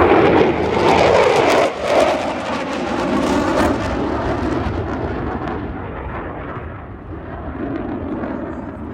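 Navy EA-18G Growler twin-engine jet making a loud pass. Its broad engine noise is strongest for the first few seconds, then fades and grows duller as the jet moves away.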